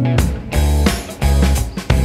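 Background music: plucked guitar over a drum beat, about two beats a second.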